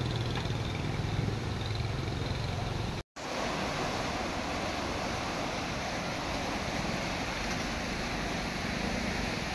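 Muddy water rushing and churning down a concrete weir, a steady rushing noise that drops out for an instant about three seconds in.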